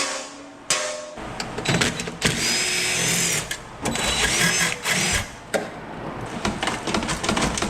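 Metal parts of an industrial laser machine being worked loose: two sharp metal strikes that ring briefly, then a few seconds of continuous clattering and scraping of metal on metal with faint squeaks.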